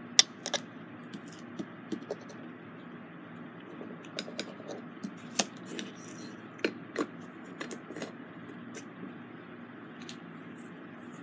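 Scattered small clicks and taps from diamond painting: a drill pen and a plastic tray of resin drills handled over the canvas, the loudest tap just after the start.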